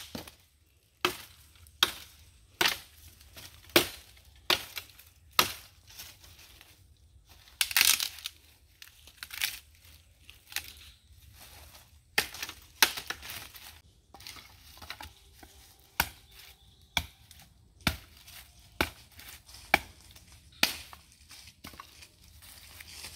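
Crisp water hyacinth stalks being snapped apart by hand: a sharp crack roughly once a second, with a brief rustle of leaves now and then.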